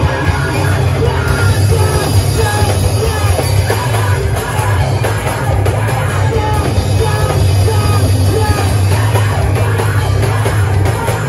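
Live hardcore punk band playing loud and without a break: distorted electric guitars, heavy bass and a pounding drum kit, with yelled vocals.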